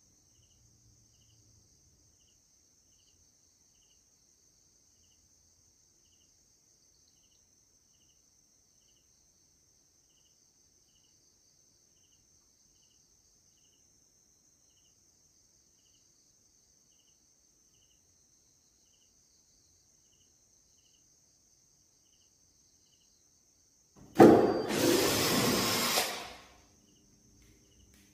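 Near the end, a cordless drill-driver runs for about two and a half seconds, starting abruptly, to back a screw out of a plastic TV casing. Before it there is only a faint, steady high whine.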